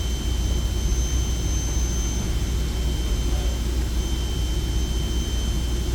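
Steady machine drone with a low hum and a rushing hiss, overlaid by two faint, thin high-pitched whines.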